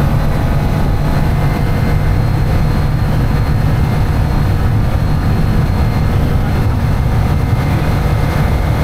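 Light propeller aircraft's engine and propeller droning at a constant speed, loud and unchanging, with faint steady high-pitched tones above the drone.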